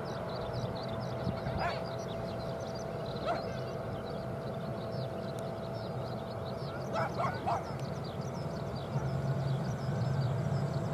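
ATR 42-600 turboprop airliner taxiing, its two Pratt & Whitney PW127 turboprops running at a steady hum with a thin whining tone, the hum growing louder near the end as the aircraft turns toward the listener. A few short sharp animal calls cut in, once each around two and three seconds and three in quick succession about seven seconds in.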